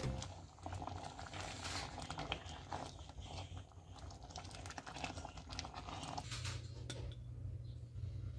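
Ladle stirring thick mung bean stew in a metal pot: soft wet stirring with light scrapes and clicks of the ladle against the pot. A low steady hum comes in about six seconds in.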